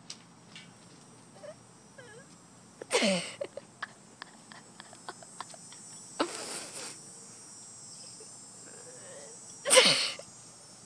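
Thin plastic cup clicking and crackling as a German Shorthaired Pointer puppy carries it in its mouth. Two loud short bursts, each falling in pitch, come about three seconds in and near the end.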